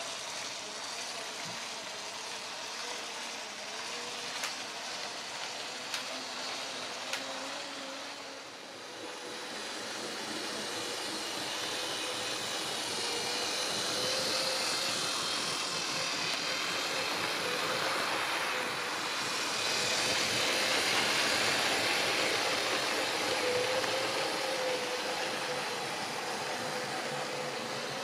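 H0-scale model train, a DR class 120 diesel locomotive model hauling long container wagons, running along the layout track: a steady electric-motor whine over wheel-on-rail rumble, with a few light clicks in the first seconds. It grows louder after about ten seconds as the train passes close by.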